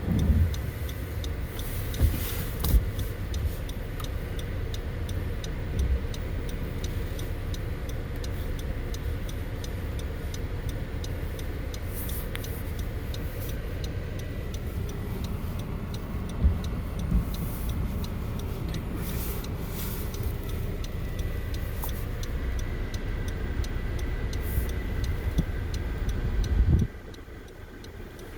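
Road and engine noise of a moving car, a steady low rumble with a few brief knocks. A faint, even ticking runs beneath it. The rumble drops off sharply near the end.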